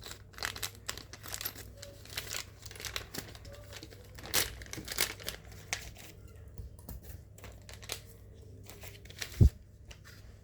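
Packaging being cut open and torn off, with irregular crinkling and tearing through the first half, then quieter handling. A single sharp thump about nine seconds in.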